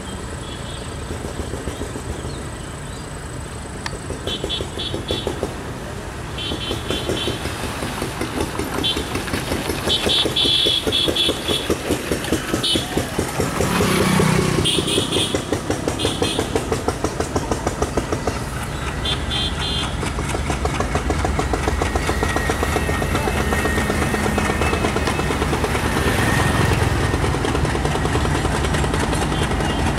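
Diesel locomotive hauling a passenger train past, its engine running with a rapid, even beat that grows louder as it approaches. A deep low rumble builds near the end as the locomotive comes close.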